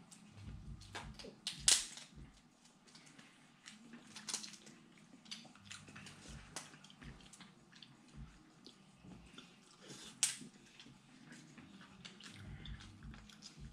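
Eating sounds at a seafood boil: scattered small clicks, cracks and chewing, with two sharper clicks about two seconds in and about ten seconds in.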